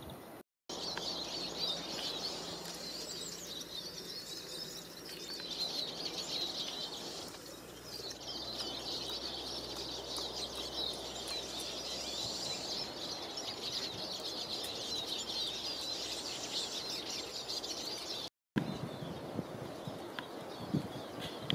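Many small birds chirping and twittering at once in the trees, a dense, steady chatter of short high calls. It breaks off twice in sudden brief silences, about half a second in and a few seconds before the end.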